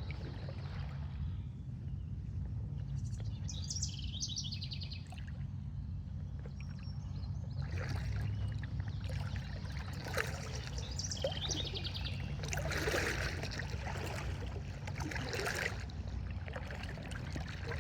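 Floodwater sloshing and splashing around the legs of someone wading through a flowing river, over a steady low rumble. Birds chirp now and then, clearest a few seconds in and again about ten seconds in.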